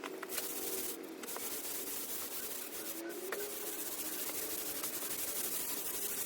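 A steady rubbing hiss of timber being worked or slid against timber, even in level for about seven seconds.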